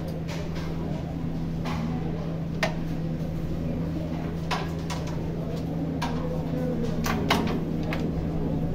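Scattered sharp clicks of carrom strikers and coins on wooden carrom boards, a dozen or so spread irregularly, over a steady low electrical hum.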